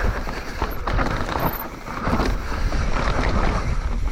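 Mountain bike riding fast down a rock garden: wind rushing over the microphone, with the tyres and bike knocking and rattling over the rocks.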